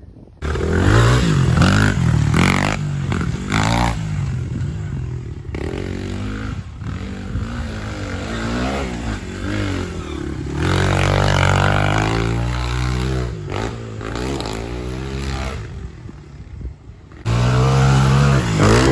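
Honda XR100 dirt bike's four-stroke single-cylinder engine revving up and down under throttle as it is ridden over dirt jumps, its pitch rising and falling again and again. The sound breaks off and jumps in level abruptly several times.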